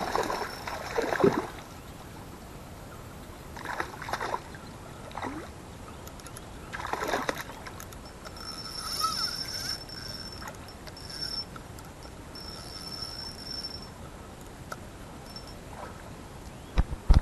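A hooked trout splashing and thrashing at the surface of a shallow stream while being played on a rod: a few short splashes over the first seven seconds or so.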